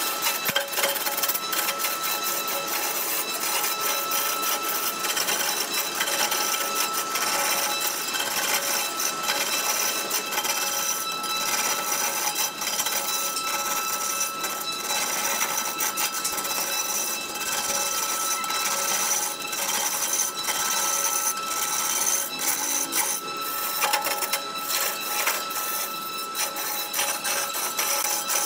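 Wood lathe spinning a large wooden blank while a hand-held turning tool cuts into it: a steady scraping hiss full of small ticks, with a constant high whine.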